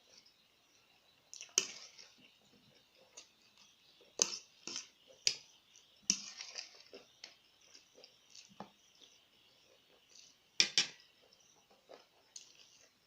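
Close-miked chewing and mouth sounds of someone eating noodles and chicken, with irregular wet clicks and crisp crunches, a few of them much louder than the rest.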